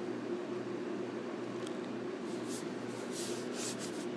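A steady low hum with short scratchy rustles about two seconds in and again near the end, from a long-haired cat eating treats right beside the microphone.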